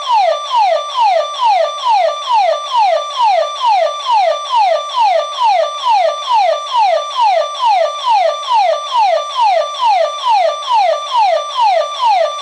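Electronic burglar alarm siren from a home security system, loud and continuous. Its tone holds high briefly and then falls, repeating about twice a second.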